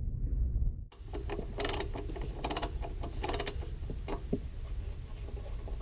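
Socket ratchet clicking in three short runs about a second apart, with lighter ticks between, as it undoes the top nut holding the stock coolant tank.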